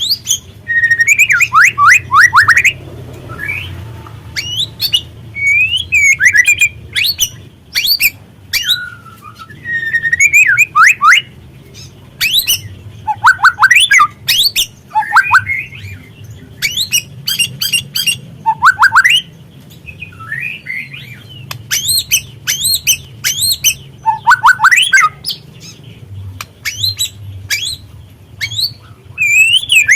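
Juvenile white-rumped shama calling in a harsh, busy chatter: sharp clicking notes, squawks, and clusters of quick falling whistled notes, in irregular bouts with short gaps.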